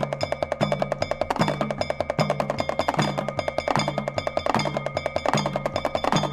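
Background music: a fast, even run of percussion strokes over a low note pattern that repeats a little more than once a second, with a few steady ringing high tones.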